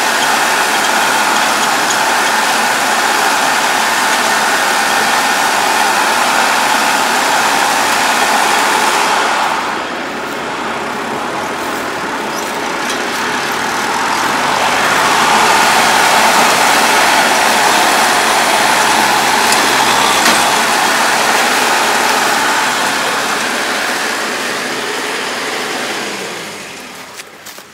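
Farm tractor's diesel engine running as it pulls a round baler through rice straw, steady mechanical noise that dips about a third of the way in, is loudest in the middle and fades near the end as the tractor moves off.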